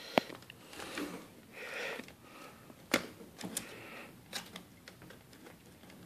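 A few sharp clicks and light knocks from the plastic case of a Lenovo ThinkPad T61 laptop being handled, with faint rustling between them.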